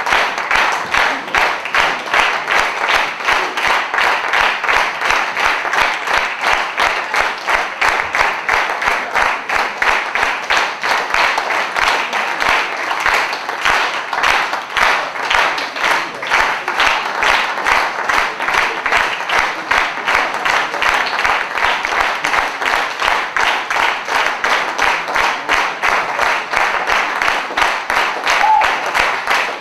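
Theatre audience applauding, clapping together in a steady, even rhythm.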